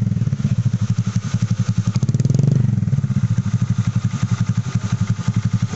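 Honda Click 150i's single-cylinder four-stroke engine idling through a Kawahara racing exhaust with a silencer insert fitted: a steady, even exhaust pulse, with a brief small blip of the throttle about two seconds in.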